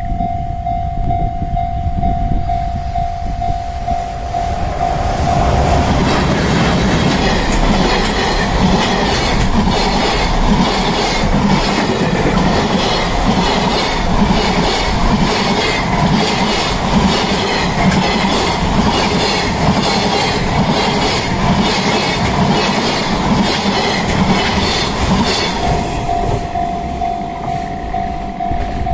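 Level-crossing warning bell ringing steadily. A few seconds in, a long container freight train hauled by an EH500 electric locomotive comes up and passes close by, its wheels clattering rhythmically over the rail joints and drowning out the bell. Near the end the train is gone and the crossing bell is heard again.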